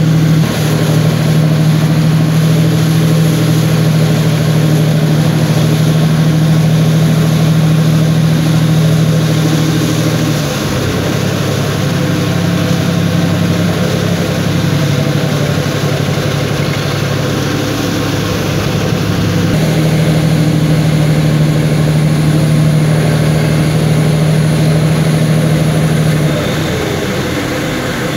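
Boat engine running steadily with a strong low hum, its pitch and level shifting a couple of times and easing off near the end.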